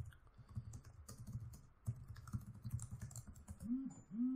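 Typing on a computer keyboard: quick, irregular keystrokes. Near the end come two brief low hums, the loudest moment.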